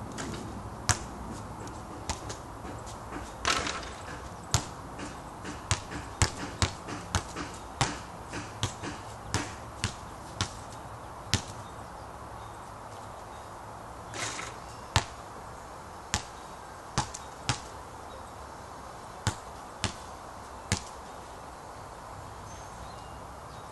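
Basketball bouncing on a backyard court: sharp slaps at irregular spacing, loudest just after each shot. A brief swish comes about every ten seconds as a shot drops through the net.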